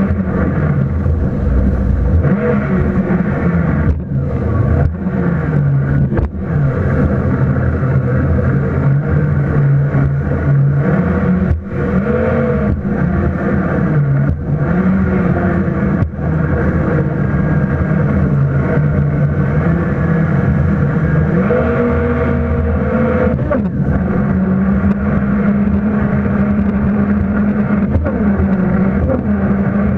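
Jet ski engine running hard and close, its note rising and falling with the throttle, over a constant rushing noise.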